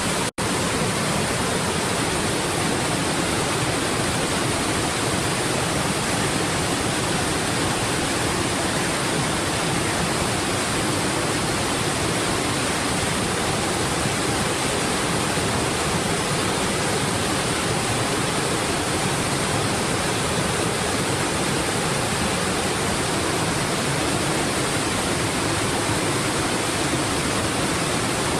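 Waterfall pouring: a steady, even rush of falling water, with a brief cut-out in the sound about half a second in.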